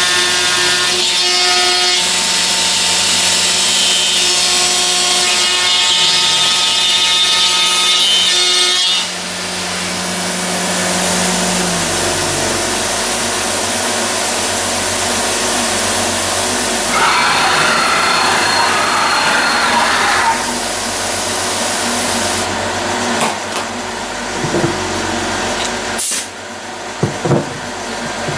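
CNC machine's stepper motors running, with steady whining tones that shift in pitch as the axes move and change speed. A stretch of rasping noise comes a little past halfway.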